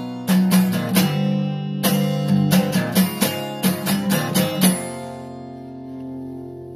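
Acoustic guitar strummed in a steady rhythm, then a last chord left ringing and slowly fading out over the final couple of seconds.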